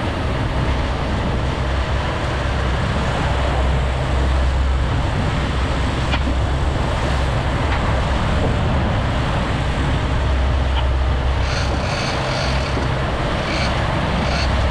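A fishing boat's engine running steadily under way, a deep rumble mixed with wind and water hiss. A few short high chirps sound over it near the end.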